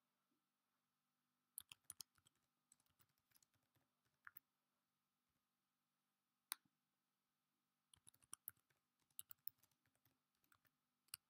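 Faint computer keyboard typing: short runs of key clicks with pauses between, as a few words are typed.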